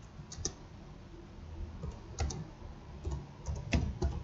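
Computer keyboard typing: irregular keystroke clicks in small clusters, each with a dull low knock, getting louder toward the end.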